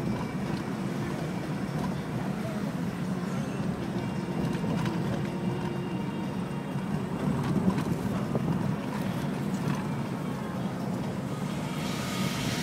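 A car driving at low speed, heard from inside the cabin: a steady low engine and road rumble.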